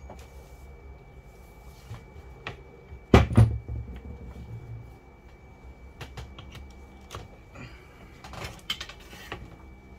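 A heavy knock about three seconds in as a cordless drill is set down on a wooden table, followed later by scattered clicks and rustles of tools and cables being handled on the tabletop.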